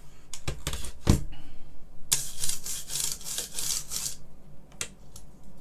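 Two knocks as the stripped BBC Master keyboard assembly is turned over and set down on the bench, then about two seconds of rapid, rhythmic scraping as a hand rubs across its bare key plate, with a couple of light clicks near the end.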